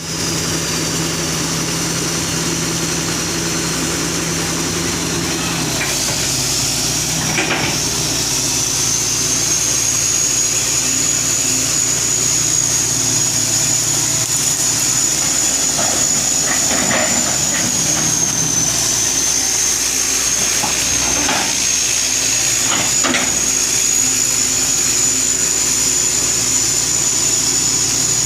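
Diesel engine of an old 1983 Hitachi excavator running steadily, with a high whine that rises about six seconds in and then holds, and a few scattered knocks.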